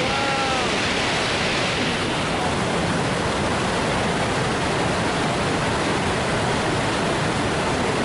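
Steady rush of whitewater at Gullfoss waterfall, the Hvítá river churning through the rapids and pouring over the falls.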